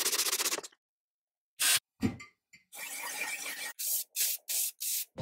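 Quick-cut workshop restoration sounds: a cloth rubbed over a metal casting of a chain mortiser, then, after a pause and a few short noises, four short hissing bursts of aerosol spray paint.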